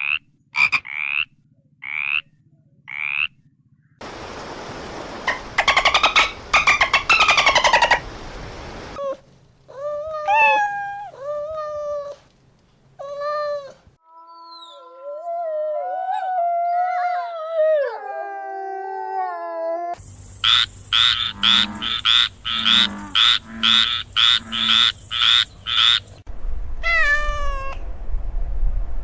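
A run of separate animal calls that changes to a different call every few seconds. Frog croaking is among them, including stretches of rapid pulsed calls.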